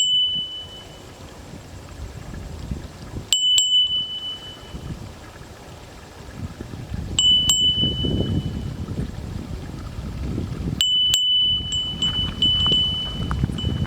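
A small metal bell or chime struck about every three to four seconds, each strike a sharp click followed by a clear high ring that dies away after about a second, the last one struck twice. Wind rumbles on the microphone underneath.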